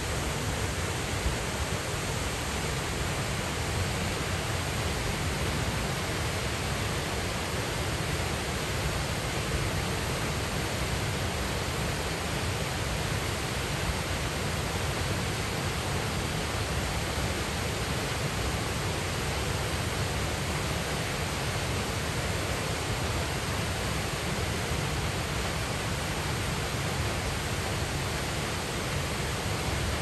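Cheonjiyeon Waterfall pouring into its plunge pool: a steady, unbroken rush of falling water that does not change.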